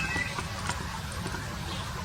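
Low steady background rumble with a few faint scattered ticks, and a brief faint whistle note from the Poksay Papua bird right at the start.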